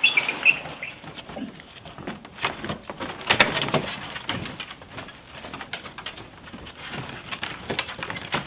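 Dogs' paws and claws pattering and clicking irregularly on a wooden deck as they move about, with a few short high squeaks near the start.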